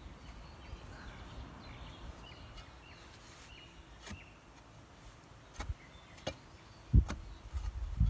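Long-handled shovel jabbed down into hard ground at the bottom of a hole: a few sharp thuds in the second half, the last one loudest, with faint bird chirps throughout.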